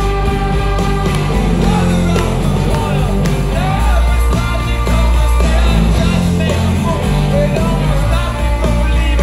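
Live rock band playing loud through a concert PA, heard from the crowd: electric guitars, bass and drums with a lead singer.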